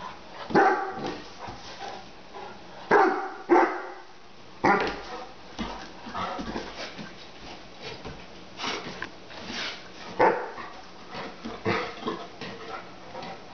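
Young Great Dane barking in single loud barks, a handful of them, spaced one to several seconds apart with softer ones between. It is fearful alarm barking at an unfamiliar glass pot lid on the floor.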